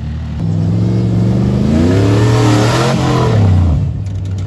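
Off-road truck engine revving hard as it drives close past: the pitch climbs for about two and a half seconds, then drops and fades as it moves away.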